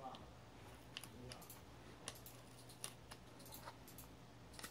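Near silence broken by faint, scattered clicks and taps of fingers handling and pressing on a plastic LG G3 battery back cover while smoothing a sticker onto it.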